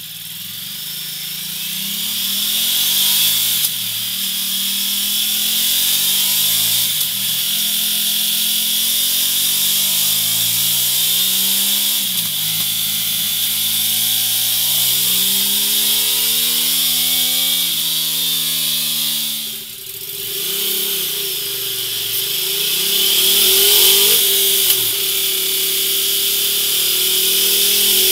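Ducati Multistrada 950's V-twin engine revved up and down repeatedly with the bike standing still, first through its stock silencer and later through a MIVV Double Gun twin-outlet exhaust.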